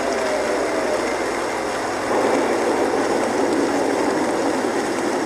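Cartoon rainstorm: a steady rushing of heavy rain, growing louder about two seconds in.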